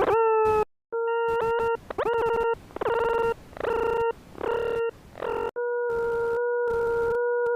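Electronic tones from the Desmos graphing calculator's audio playback of a graph: a buzzy tone with overtones that cuts in and out in short pieces with quick pitch swoops, then holds one steady pitch from about two-thirds through.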